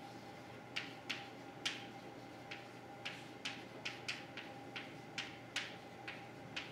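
Chalk striking and writing on a blackboard: a string of about a dozen sharp, irregular clicks, a few a second, over a faint steady room hum.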